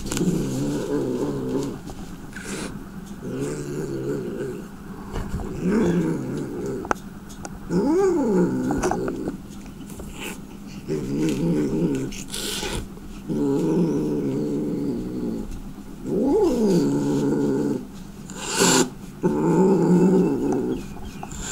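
An angry domestic cat growling in long low rumbles, one after another, with a drawn-out yowl that rises and falls about eight seconds in and again about sixteen seconds in. A few short hisses cut in, the loudest near the end.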